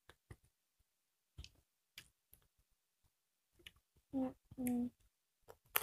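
Quiet eating sounds: scattered soft clicks and smacks of mouths chewing and fingers working rice on plates and in a steel bowl. About four seconds in come two short hummed voice sounds.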